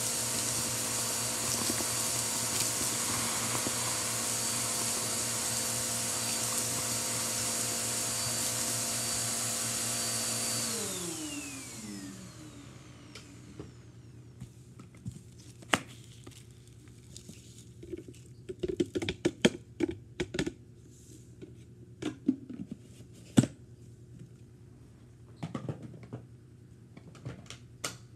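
Vacuum cleaner running steadily with its hose on a carpet. About ten seconds in it is switched off and its motor whine falls away as it spins down, followed by scattered clicks and rustles of handling.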